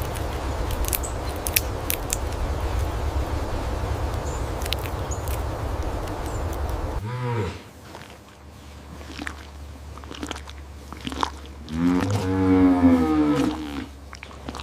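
A large animal: a steady rough, crunching noise for about seven seconds, then a short low call, a few clicks, and about twelve seconds in a longer, louder lowing call.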